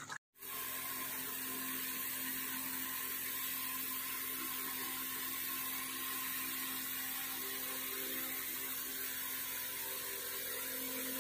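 A steady whirring hum with hiss, as from a small motor running, even throughout with no change in pitch or level.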